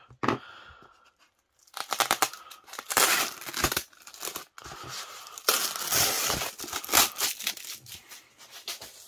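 Brown packing tape being peeled off a sheet of white polyethylene foam wrap, in a series of crackling, tearing pulls that begin about two seconds in.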